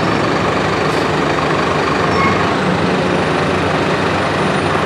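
A large vehicle's engine running steadily close by: a loud, even low hum with a wash of noise over it.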